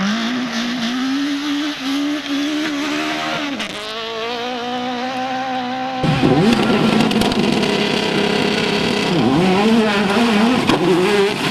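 Racing car engine at full throttle, its pitch climbing and briefly dipping at each gear change. About six seconds in it cuts to a louder engine whose revs swing sharply down and back up several times.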